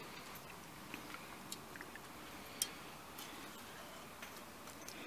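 Faint, scattered clicks as hands work a seasoned raw pork shoulder in a steel pot, the clearest about halfway through.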